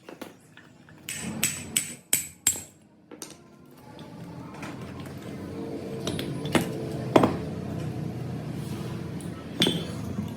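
A hammer strikes metal with a ringing tone, about four blows in the first few seconds. A steady mechanical hum then builds, with a few separate knocks.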